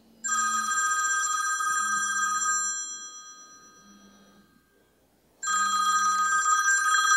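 Mobile phone ringing twice: a fast-warbling electronic ring that lasts about two and a half seconds and fades out, then rings again about five seconds in.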